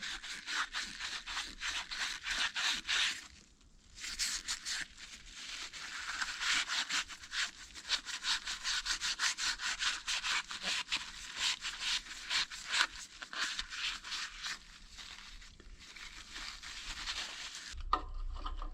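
Rapid back-and-forth scrubbing strokes as the small engine's carburettor float bowl is cleaned with carb cleaner, with a brief pause about three and a half seconds in.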